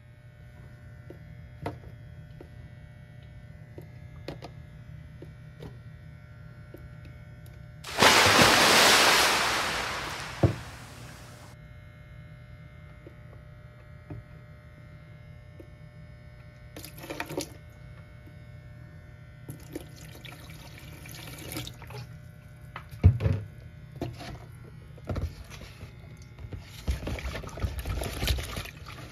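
Water rushes hard into a stainless steel sink for about three seconds, starting suddenly and tailing off. Later come scattered clicks and knocks, with liquid splashing and trickling over the removed faucet aerator near the end. A steady low hum runs underneath.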